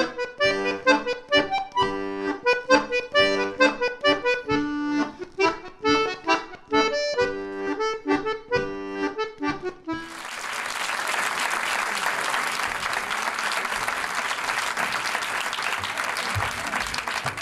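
Lively instrumental music of short, rhythmic notes that stops abruptly about ten seconds in, giving way to a steady rushing noise.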